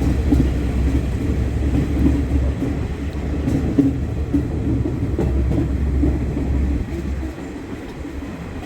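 Passenger train running, heard from inside the carriage: a steady, loud rumble and rattle of the coach on the rails, easing slightly near the end.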